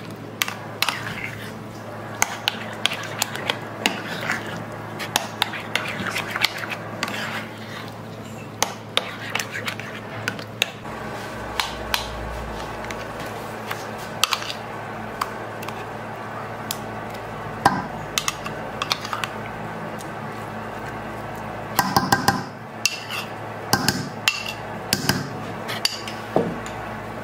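A spoon stirring a thick sauce in a small bowl, scraping and clicking against its sides, then scooping and tapping the sauce out over fish pieces in a stainless steel bowl. A steady low hum runs underneath.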